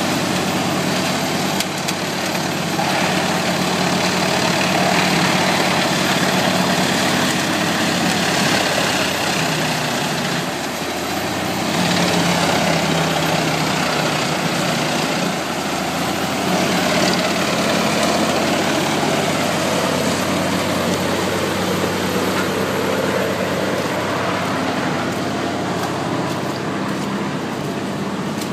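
Tractor-driven whole-tree wood chipper running, the tractor's engine note steady beneath a continuous dense noise of timber being chipped, the level swelling and easing every few seconds.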